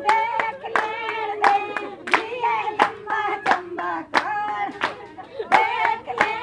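Women singing a Punjabi folk song, gidda style, to steady hand-clapping, about three claps a second.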